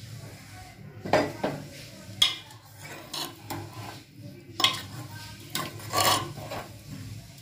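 A metal ladle stirring thick brinjal curry in an open pressure cooker, scraping against the pot's sides and bottom in several separate strokes.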